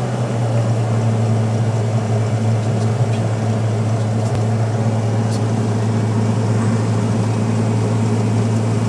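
Cirrus SR22 light airplane's six-cylinder piston engine and propeller running steadily at an even, unchanging pitch.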